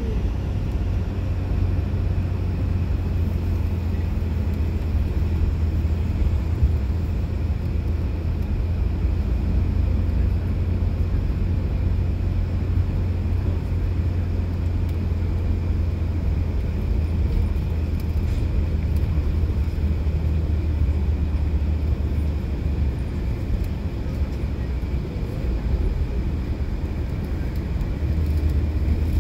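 City bus riding along, heard from inside the cabin: a steady low engine and road rumble.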